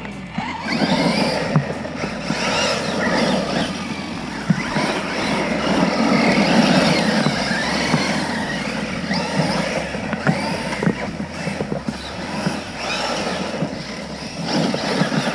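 RC rock crawler driving: its small electric motor and gears whining, the pitch wavering up and down with the throttle, with scattered knocks throughout.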